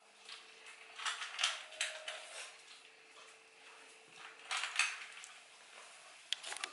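Barbet puppies eating dry kibble from a stainless steel bowl: bursts of clinking and rattling as the food and their muzzles knock against the metal, about a second in and again around four and a half seconds in.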